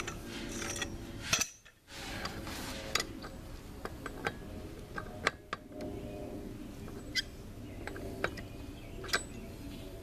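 Scattered sharp metallic clinks and clicks of a breaker bar and socket being worked on a front axle's 32 mm spindle nut, with short gaps between them.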